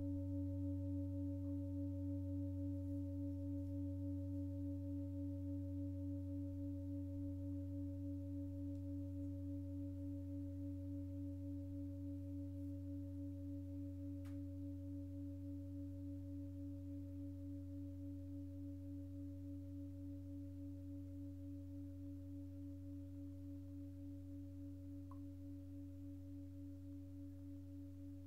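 A 32 cm five-metal singing bowl ringing out with a very deep hum and a few higher overtones. It fades slowly over the whole stretch with a gentle, regular pulsing waver, and is not struck again.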